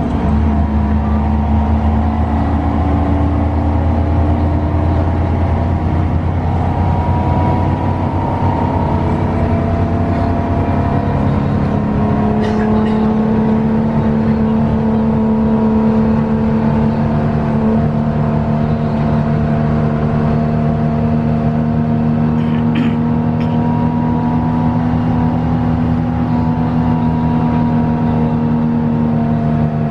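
Front-mounted diesel engine of an intercity coach running steadily at cruising speed, heard from inside the passenger cabin, with a constant drone. Its pitch dips briefly right at the start.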